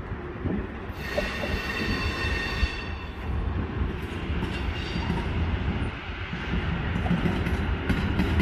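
Slow-moving CSX freight train rolling past: a steady low rumble of wheels on rail, with a high wheel squeal from the flanges rubbing against the rail on the curve. The squeal is strongest about one to three seconds in and fades after that.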